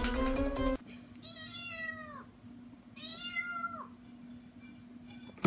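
A cat meowing twice: two drawn-out meows, each about a second long, falling in pitch at the end.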